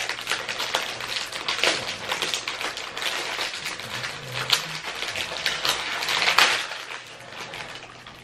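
Crinkling and rustling of a plastic cookie wrapper being pulled out of its cardboard box and opened by hand, loudest about two-thirds of the way through and dying down near the end.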